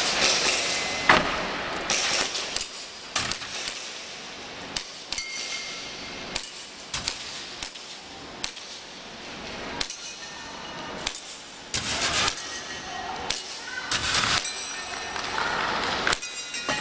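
Airsoft pistol fired in a string of sharp, irregularly spaced shots, roughly one or two a second, with metallic clangs and dings of BBs striking steel targets. A steady high beep ends about a second in.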